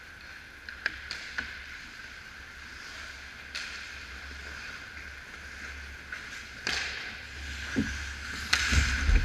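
Ice hockey play near the goal: sharp clicks of sticks and puck about a second in, skate blades scraping the ice, and a louder scrape with low thumps near the end as players close on the net, over a steady background hum.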